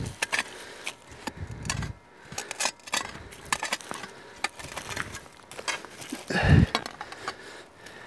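Scraping, rustling and small clicks of hands and tools working the soil of a dig pit and handling a freshly dug-out find, with one dull thump about six and a half seconds in.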